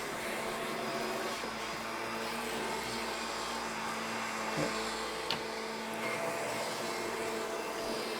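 Upright vacuum cleaner with a power-drive brush head running steadily as it is pushed over worn polyester carpet, with a level motor hum over the suction noise. Two brief clicks come a little past the middle.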